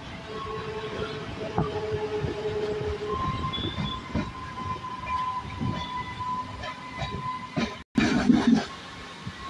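MEMU electric train running on the rails: uneven knocks of wheels over rail joints, with a steady whine that shifts to a higher pitch about three seconds in. Near the end the sound cuts out for an instant, then comes back as a louder low rumble.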